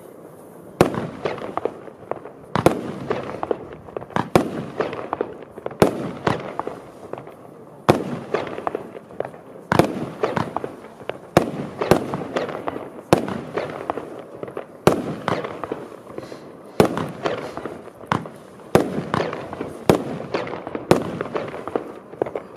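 Evolution Feuerwerk 'Lights of Heaven' firework battery firing shot after shot: sharp bangs about one to two a second, each trailing off before the next.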